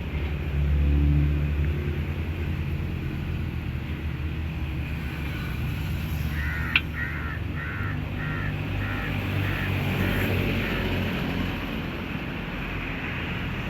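Low rumble of a vehicle going by, loudest about a second in. Just past the middle there is a single sharp click, and a bird calls about eight times in an even row over the next few seconds.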